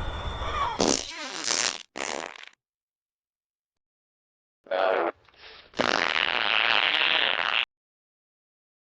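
Fart sound effects: a run of sputtering farts that stops about two and a half seconds in, then after a pause a short fart, a small one, and a long steady fart of about two seconds that cuts off suddenly.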